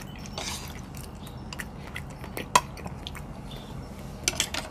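Spoon and fork clicking and scraping against plates while people chew, with one sharper clink about two and a half seconds in and a few quick clicks near the end.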